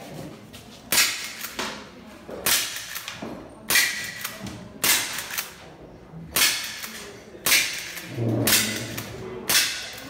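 A string of about eight shots from a CO2 lever-action rifle, one a little over every second. Each is a sharp pop, and at least one is followed by the short ring of a struck steel plate target.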